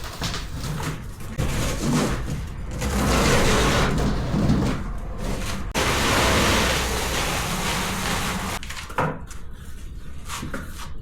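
Scraping, sliding and knocking noises as a new rolling toolbox is moved and unpacked, in long rustling stretches with scattered knocks.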